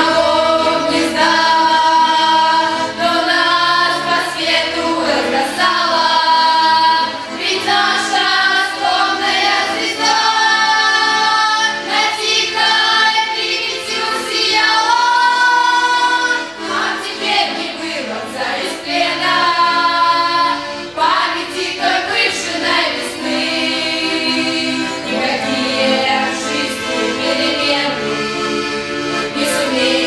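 A girls' folk choir of about eight young female voices singing a Russian song in phrases with held notes, accompanied by a bayan (button accordion).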